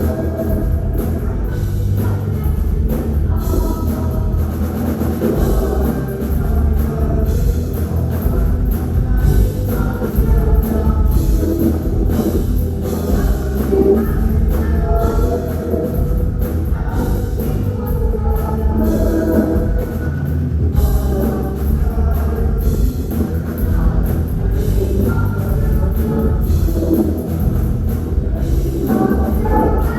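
Rock band playing, with a drum kit driving the beat under bass and guitars.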